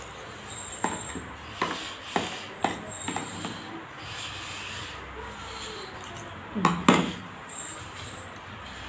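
A spoon scraping and clicking against a plastic plate during eating: a run of short sharp clicks, then two louder ones close together about two-thirds of the way through.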